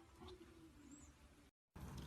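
Near silence, with a faint brief animal-like sound about a quarter second in. The audio drops out completely for a moment near the end.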